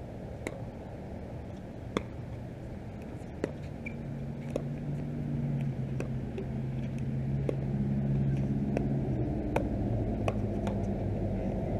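Pickleball paddles striking a plastic ball in a rally: a string of sharp pops, roughly one a second. Under them the steady low hum of an engine comes in and grows louder from about four seconds in.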